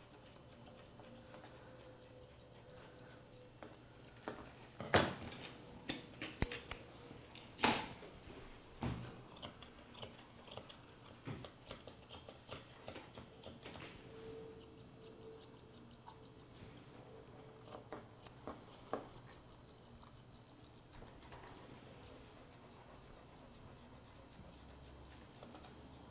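Grooming scissors snipping through a dog's coat, a run of quick, quiet clicking cuts with a few louder snips about five to eight seconds in.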